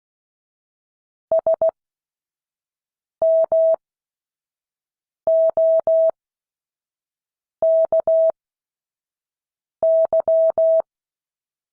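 Morse code tone: a steady mid-pitched beep keyed into dits and dahs, five characters sent one at a time with long pauses of about two seconds between them, spaced out for copying practice.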